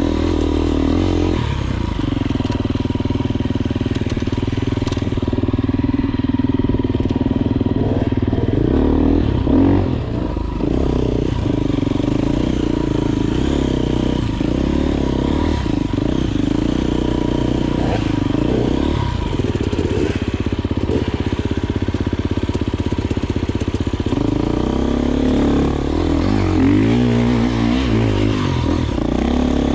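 Enduro motorcycle engine running under load, its pitch rising and falling with the throttle, with a few knocks along the way.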